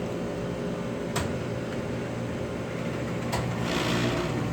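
Steady hum of commercial kitchen machinery, with a sharp click about a second in and another a little past three seconds, and a hiss coming up near the end.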